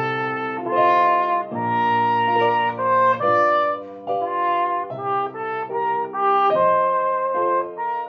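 Solo cornet playing a lyrical étude melody in phrases, with short breath breaks between them, over a sustained piano accompaniment.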